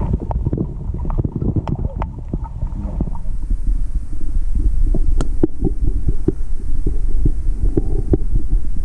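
Underwater river sound picked up by a camera in its waterproof housing: a loud, muffled low rumble of moving water, with many small clicks and taps scattered through it. It grows a little louder about three seconds in.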